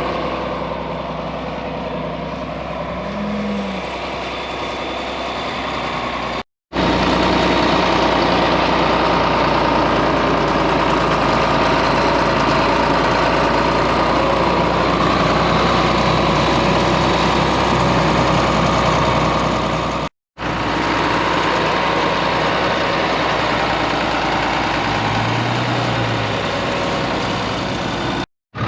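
Farm tractor engine running steadily, heard in three stretches split by two sudden brief cut-outs; it is louder after the first cut.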